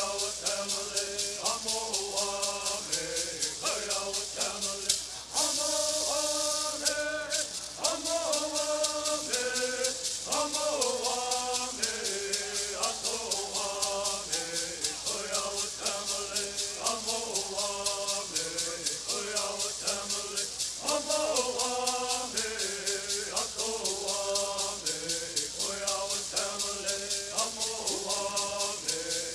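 Southern California bird singing: a group of voices singing in unison over the steady, fast shaking of gourd rattles.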